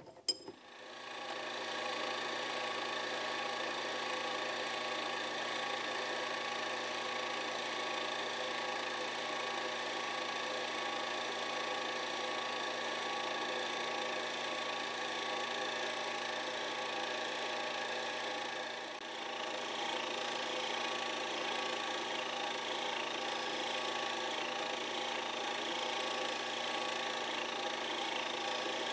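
Mini lathe spinning up and then running steadily, its motor and gear train giving a whine made of several fixed tones, while turning down the outside of a piece of tubing. About two-thirds of the way through the sound dips for a moment, then runs on slightly brighter.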